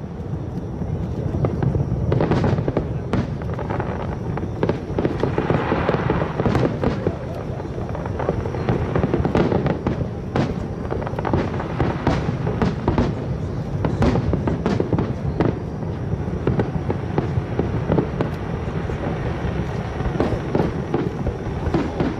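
Aerial fireworks display: shells bursting in quick succession, their booms and sharp cracks running together into a continuous din.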